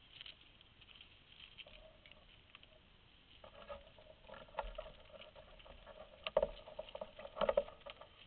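A road bicycle rolling up close with clicking and rattling that builds over the last few seconds and peaks twice.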